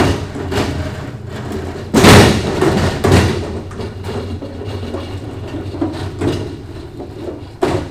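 U.S. General full-bank six-drawer steel roll cart rolling on its large casters over a rough, uneven concrete floor: a continuous rumble broken by loud thumps as it goes over bumps, the heaviest about two seconds in, another about a second later and one more near the end.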